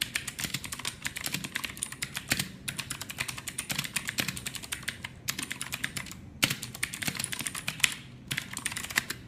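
Fast typing on a mechanical keyboard with Gateron Blue clicky switches (E-Blue Mazer K727, replacement keycaps): a dense run of sharp key clicks in bursts, with brief pauses between words.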